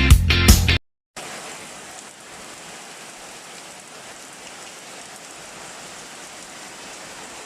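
Background music stops under a second in; after a brief gap, steady heavy rain falls.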